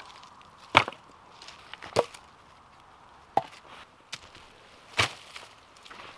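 Wood being chopped: four sharp blows roughly a second to a second and a half apart, with a few lighter knocks between them.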